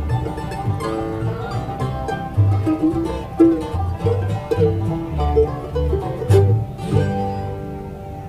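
Bluegrass band (banjo, mandolin, guitar and upright bass) playing the instrumental close of a song, without vocals. The picked notes and bass line stop about seven seconds in on a final chord that rings and fades.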